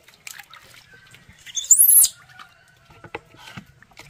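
A baby monkey gives one short, high-pitched squeal about two seconds in, while water is splashed and poured over it in a basin during its bath.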